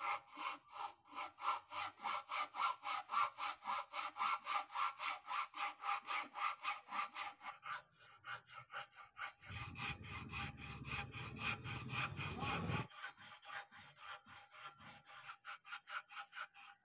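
Flat hand file rasping back and forth across a wooden saw handle in quick, even strokes, several a second, shaping and smoothing the weathered wood. The filing pauses briefly about halfway through, then resumes.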